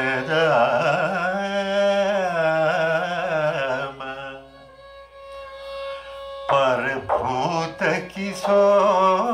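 Carnatic vocal music: an elderly man's voice singing a devotional kriti in long, gliding, ornamented phrases, with violin accompaniment over a steady drone. The voice pauses for about two seconds in the middle while the drone holds, then comes back in.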